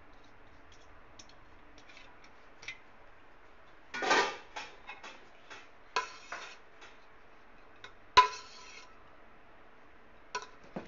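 A metal spoon scraping and clinking against a metal cooking pot as leftover rice is scraped out, in a few separate strokes. The loudest is a sharp clank with a short ring about 8 seconds in, after a longer scrape about 4 seconds in.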